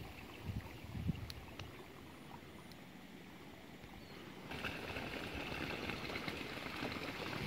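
Outdoor field ambience: wind buffets the microphone in low gusts in the first second, then a steady faint hiss comes in about halfway through and holds.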